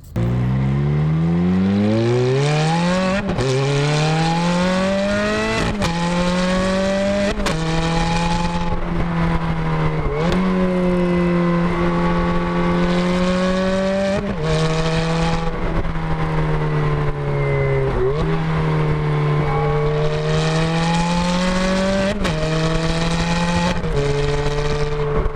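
Ferrari F430's 4.3-litre V8 accelerating hard through its automated-manual gearbox. The engine note climbs steadily and drops sharply at each of about eight gear changes.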